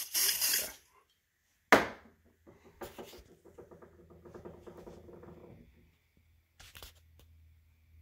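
Canned smoke-detector test aerosol sprayed at a photoelectric smoke detector: a hiss lasting under a second, then a short sharp spray about two seconds in and another brief one near the end.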